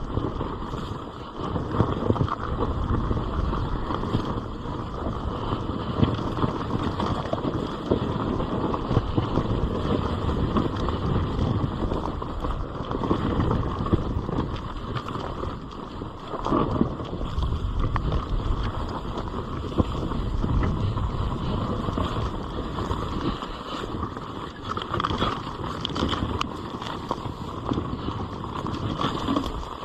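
GasGas EC 300 two-stroke enduro motorcycle running as it rides down a rough dirt trail, its engine rising and falling with the throttle.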